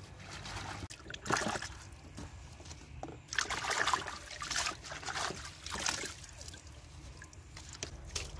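Water sloshing and splashing in a large basin as hands swish leafy greens and herbs through it, in a series of short bursts, the loudest about three to four seconds in.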